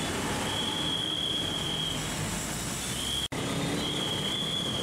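Street traffic on a wet road: a steady hiss of motorcycles and cars passing, with a thin high whine that comes and goes several times. The sound drops out for an instant a little over three seconds in.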